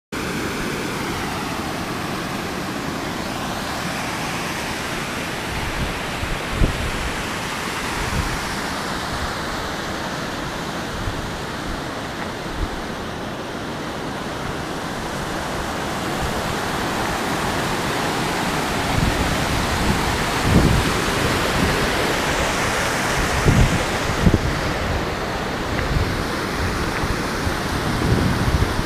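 Steady rush of a mountain torrent mixed with wind on the microphone, with low wind buffets now and then. It grows a little louder in the second half.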